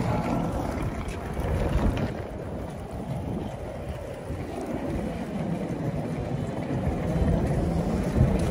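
Wind buffeting the microphone: a low, uneven rumble that rises and falls.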